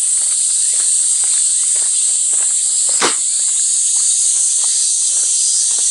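A loud, steady, high-pitched chorus of cicadas, with footsteps about two a second on the path beneath it. There is one sharp click about three seconds in.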